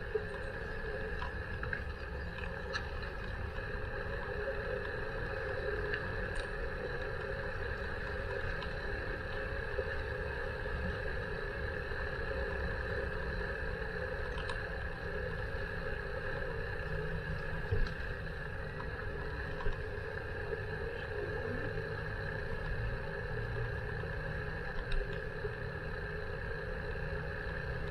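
Steady riding noise from a moving bicycle: a low rumble with a steady hum over it, and a few short knocks in the second half.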